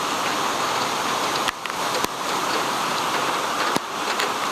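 Rain pouring down in a windy storm: a loud, steady hiss, with a few sharp clicks.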